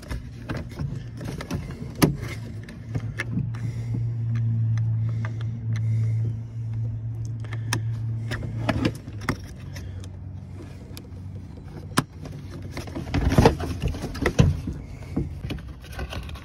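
Scattered clicks and knocks of a door-latch rod and its plastic retaining clips being handled and snapped into place inside an opened car door, with a louder cluster of knocks near the end. A steady low hum runs through the first half.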